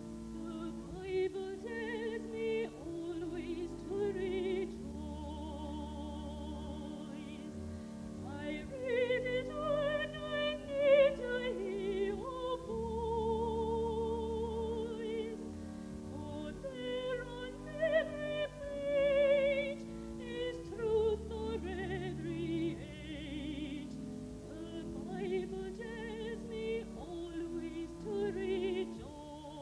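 A choir singing, with a high female voice carrying the melody with strong vibrato over sustained low chords.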